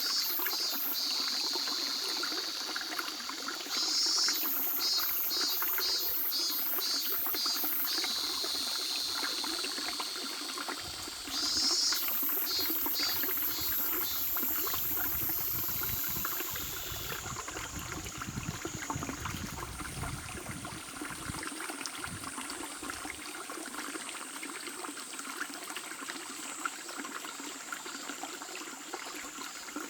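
A shallow river babbling steadily over stones. High-pitched pulsing trills come and go over it for the first half, giving way to a thin, steady high tone.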